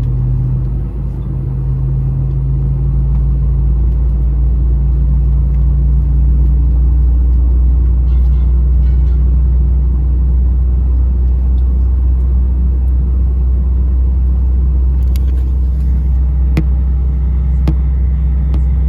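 Steady low rumble of an Airbus A320 cabin on the ground before takeoff, with a low hum underneath and a few light clicks near the end.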